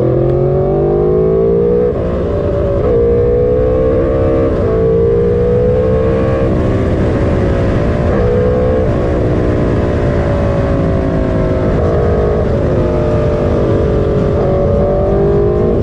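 Sport motorcycle engine heard while riding, its pitch climbing over the first two seconds, then running fairly steady with brief dips as the throttle changes. A heavy wind rumble on the microphone runs underneath.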